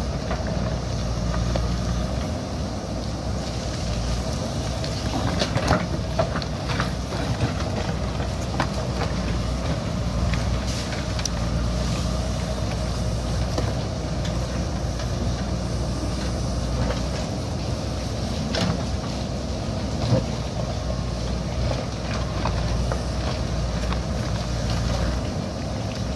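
JCB backhoe loader's diesel engine running steadily under work, with scattered sharp knocks, several close together about five to eleven seconds in and two more near the end.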